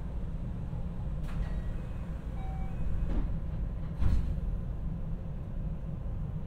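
Inside a JR West 225 series electric train standing at a platform: a steady low hum, with two short thumps, one just over a second in and a louder one about four seconds in.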